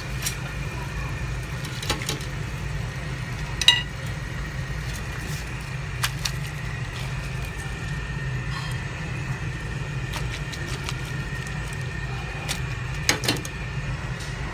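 Light metallic clinks of a wire-mesh strainer basket knocking against the rim of a steel cooking pot, a handful of times with the sharpest about four seconds in, over a steady low hum.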